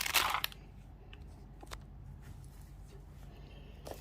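A short rustle of packaging being handled, then a couple of faint clicks from the fountain's plastic parts, over a low steady room hum.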